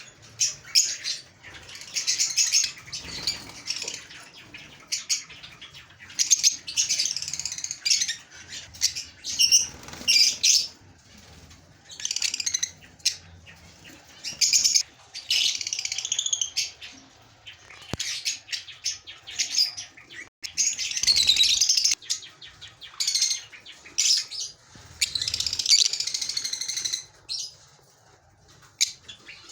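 Lovebirds chattering: repeated bursts of high-pitched chirps and squeaks, each a second or two long, with short pauses between.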